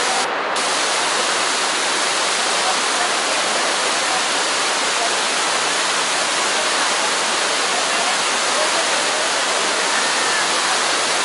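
Kempty Falls, a cascading waterfall, pouring over rocks close by: a loud, steady rush of water.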